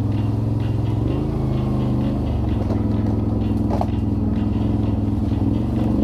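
A vehicle engine running steadily under way off-road. Its pitch lifts briefly about a second in and settles back just after two seconds, with a light, regular ticking clatter over it.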